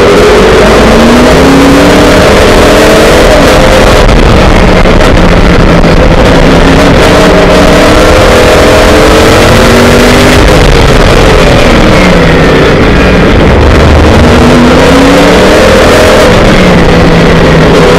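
Formula Le Mans prototype's V8 engine heard from the open cockpit under hard racing, very loud. Its pitch climbs through the gears with a short drop at each upshift. Around twelve seconds in it falls through downshifts and then pulls up again, over heavy wind and road noise.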